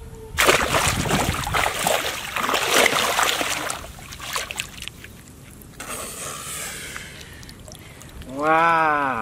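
Heavy splashing and sloshing in shallow water for about three seconds as hands plunge in to grab a plastic-bottle fish trap with a fish in it. Near the end, a short rising-and-falling voiced exclamation.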